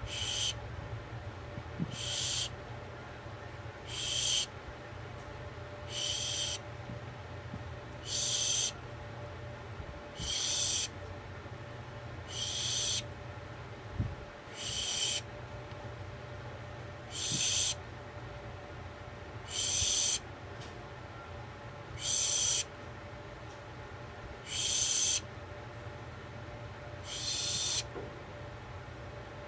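An owl giving short, harsh, hissing screeches about every two seconds, the gaps slowly widening, over a steady low hum.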